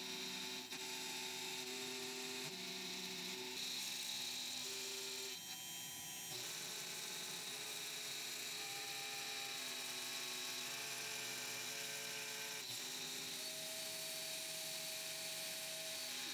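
ACMER Ascarva 4S desktop CNC router, with its 70 W spindle, milling a recess into black MDF. There is a steady motor whine and hiss, and tones in it step to a new pitch every second or two as the machine changes its moves.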